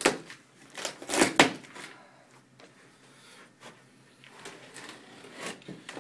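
Cardboard box and packing being handled during an unboxing: a few sharp knocks and scrapes in the first second and a half, then softer, scattered rustling and bumps.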